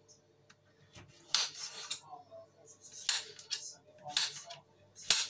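Kitchen knife slicing a cucumber on a cutting board: about five separate cuts, roughly one a second, each a crisp chop with a click as the blade meets the board.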